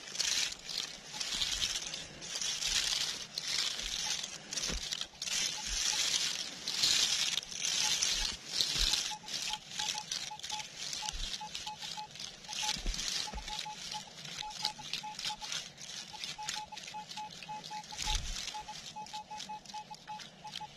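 Rhythmic swishing through grass about once a second. From about nine seconds in come runs of short, high beeps, all at one pitch, from a Minelab Equinox 800 metal detector responding to a target.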